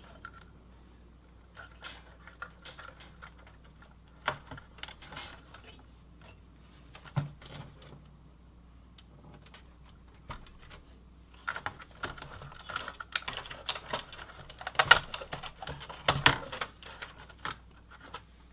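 Scattered sharp clicks and small rattles of plastic connectors and cables being handled and plugged in inside a Dell OptiPlex 780 desktop case, sparse at first and busier in the second half.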